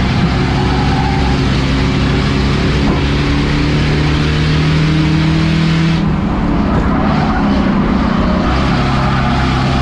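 Race car engine running hard at speed on an oval track, with steady engine tone and road and wind noise. The hiss dips briefly about six seconds in.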